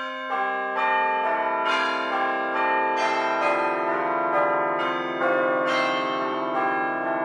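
Church bells ringing a peal, a new bell struck roughly every half second, each ringing on under the next.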